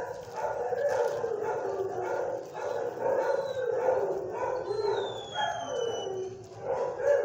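Several shelter dogs barking and howling in overlapping calls without a break, with a thin high whine gliding down about two-thirds of the way through.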